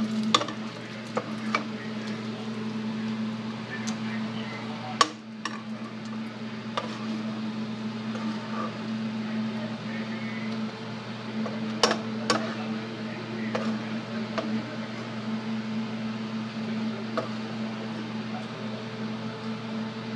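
Bacon frying in a pan of hot rendered fat, crackling with scattered sharp pops over a steady low hum; the loudest pops come about five and twelve seconds in.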